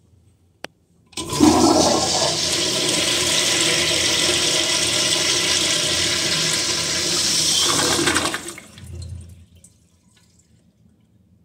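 Commercial flushometer-valve toilet flushing. A click of the handle is followed, about half a second later, by a loud rush of water lasting about seven seconds. The rush stops fairly abruptly as the valve shuts, leaving a short trickle.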